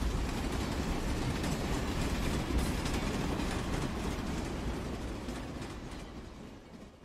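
Train passing on the rails, a steady dull rumble that fades away over the last two seconds.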